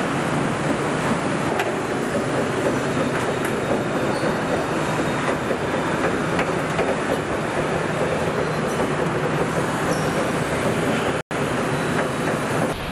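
Steady din of a car assembly line: machinery noise with faint clatter and occasional clicks. It drops out for an instant about eleven seconds in.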